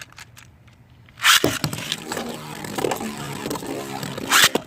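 A few light clicks, then about a second in a sudden loud rip as two Beyblade spinning tops are launched into a plastic stadium. After that the tops spin and grind against the stadium with a whirring hum, and there is one sharp clash near the end.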